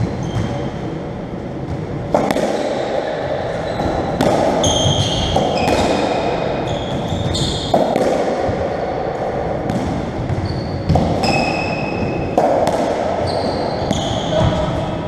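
A racketball rally on a squash court: the ball is struck by rackets and hits the walls and floor in sharp smacks every second or two, each echoing around the enclosed court. Short high squeaks of trainers on the wooden floor come between the shots.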